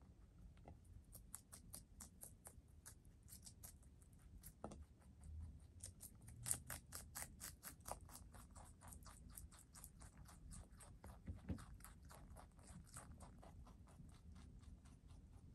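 Rabbit chewing crisp lettuce and leafy greens: a quiet, quick run of crunches, about five a second, thinning out near the end as it stops eating.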